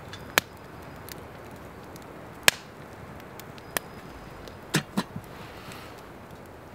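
Wood fire crackling in a small steel twig stove, sharp pops every second or two. Two duller knocks come about five seconds in, as the metal kettle is set down.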